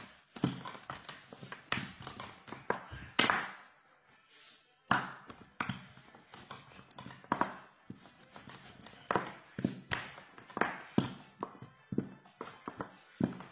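A rolling pin working piadina dough thin on a bare worktop: irregular taps and knocks several times a second as the pin rolls back and forth and the dough is shifted.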